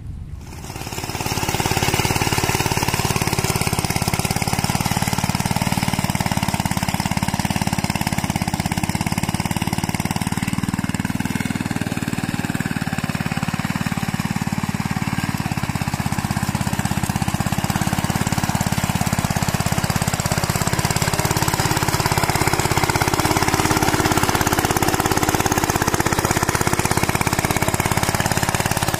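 Single-cylinder diesel engine of a two-wheel hand tractor chugging steadily under load while pulling a plow through grassy ground. It comes in loud within the first second or two and keeps running without stalling.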